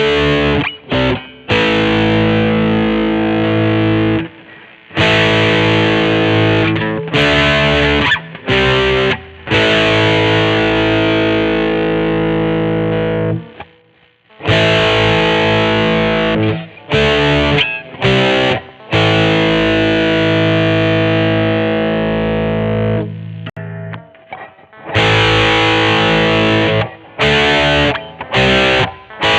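Godin SD 24 electric guitar played with heavy distortion, strumming sustained chords that are cut off sharply, over and over, with short gaps between the phrases.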